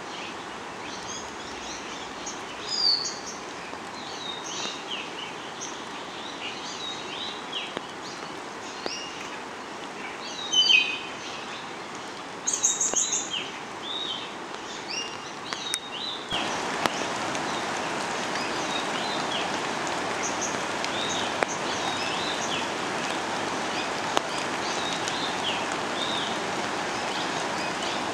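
Many short bird chirps and calls over a steady rushing of water; a little past halfway the water noise suddenly becomes louder and stays so.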